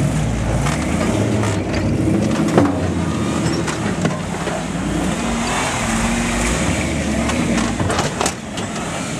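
Truck engine running and revving unevenly as it works over rough, rutted dirt, with a few sharp knocks and rattles from the bumpy ride, one about two and a half seconds in and a cluster near the end.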